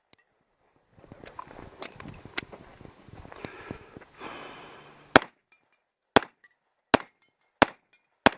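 Pistol shots fired in a string: five sharp shots a little under a second apart in the second half. They follow a few seconds of rough, uneven noise with a few fainter cracks in it.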